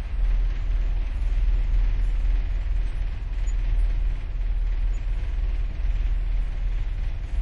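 Staten Island Ferry under way, heard aboard: a steady deep rumble from the vessel's engines with a light hiss over it.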